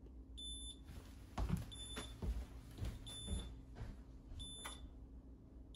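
Faint electronic beep, short and high-pitched, repeating about every 1.3 seconds, four times, with soft low thuds in between.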